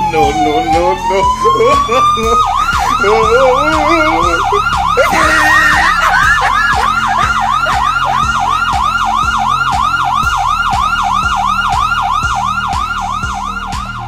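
Electronic police-style siren played from a small portable speaker: a slow wail falling and then rising, which switches about two and a half seconds in to a fast yelp of about three sweeps a second.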